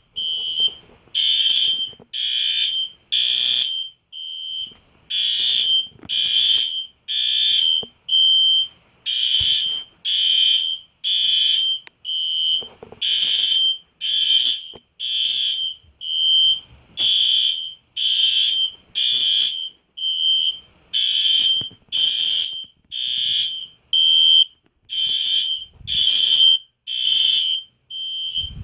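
Three System Sensor fire alarm horn-strobes, two SpectrAlert Classics and a SpectrAlert Advance, sounding together in loud, shrill, repeated short blasts, roughly one a second. The units are not in step, so full blasts alternate with thinner ones.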